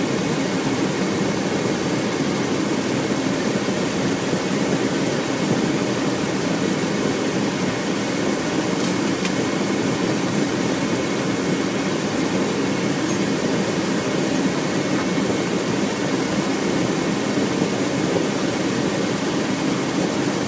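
Steady engine and road noise heard inside the cab of a military vehicle driving on a dirt road, an even drone with no changes.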